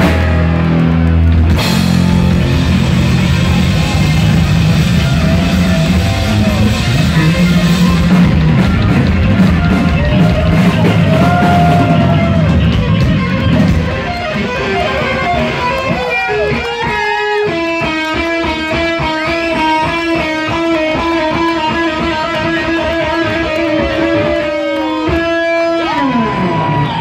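Heavy metal band playing live, loud, with electric guitar, bass and drums together. About halfway through, the bass and drums drop out and the electric guitar plays alone, holding one long steady note, then sliding down in pitch near the end.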